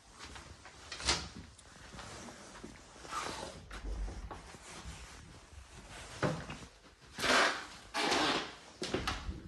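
A wooden interior door opened by its lever handle: latch clicks and several short scuffing, rustling noises, the loudest two near the end.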